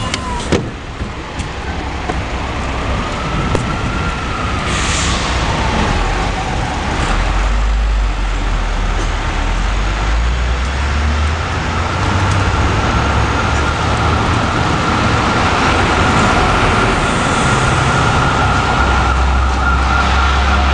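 City street traffic with a siren wailing, its pitch rising and falling and then holding a steady high tone, over a low traffic rumble that grows stronger about a third of the way in.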